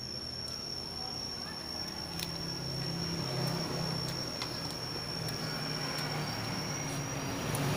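Low engine rumble of a passing vehicle, growing louder near the end, under a steady high-pitched whine, with a couple of faint light clicks.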